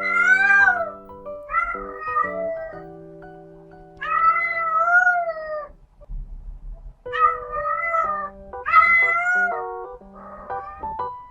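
Female cat in heat calling: a series of about six long, drawn-out yowls that rise and fall in pitch, separated by short pauses, with light background music under them.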